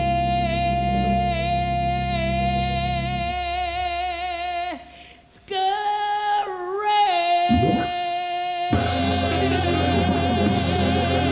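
Female jazz vocalist holding long notes with vibrato over an organ trio. About three seconds in the band drops out, and her voice carries on alone with a brief break. The band comes back in, fuller, about two-thirds of the way through.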